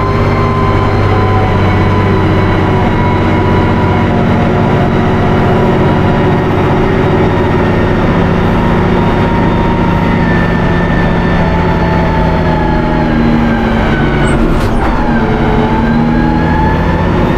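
Valmet 1280 tractor's diesel engine running steadily under load while pulling a seed planter, its pitch drifting only slightly.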